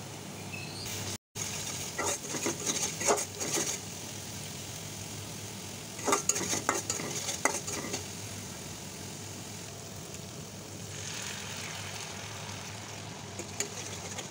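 A flat metal spatula scrapes and stirs spice paste around a metal wok, over a steady sizzle of frying oil. The scraping comes in bursts of quick strokes at about 2 to 4 seconds, again at about 6 to 8 seconds, and once more near the end. The sound cuts out for a moment about a second in.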